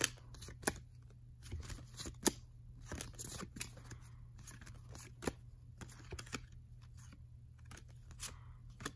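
Baseball cards flipped quickly one behind another by hand, giving irregular sharp card snaps and slides, about two or three a second.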